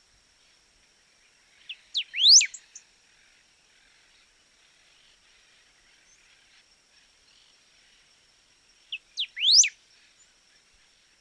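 Golden-billed saltator singing two short whistled phrases about seven seconds apart. Each phrase is a couple of quick notes leading into a loud sweeping whistle.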